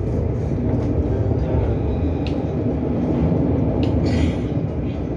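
Steady low rumble of a tram running along its rails, heard from inside the car, with a few faint clicks.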